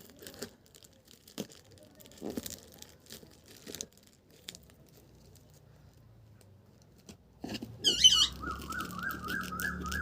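Scattered crinkles, taps and short tearing sounds of sealed plastic packaging being worked at with scissors and hands. Near the end, a repeating chirpy electronic melody over a low backing starts up.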